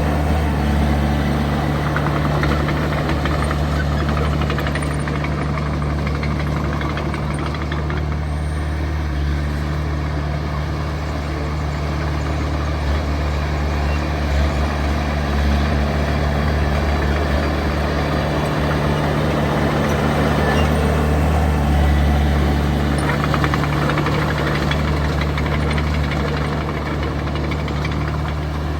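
Heavy diesel engine of earthmoving machinery running steadily under load, a continuous low drone that swells and eases slightly a few times.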